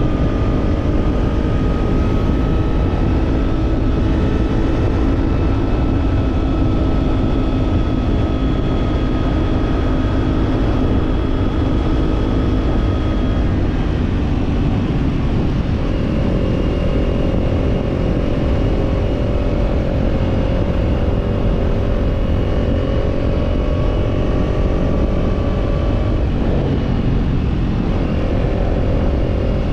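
Parallel-twin Kawasaki Z motorcycle engine with a slip-on exhaust, running at steady cruising revs under heavy wind rumble. The note creeps up slightly, then changes to a different steady pitch about fourteen seconds in.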